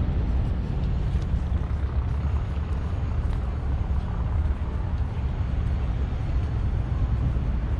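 Steady low engine rumble with a constant hum, as from a motor vehicle running nearby.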